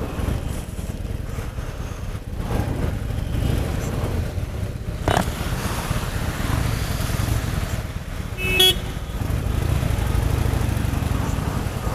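Harley-Davidson Sportster 883's air-cooled V-twin running at low speed with a steady low rumble, creeping through traffic. A sharp click comes about five seconds in, and a vehicle horn gives a short toot about eight and a half seconds in.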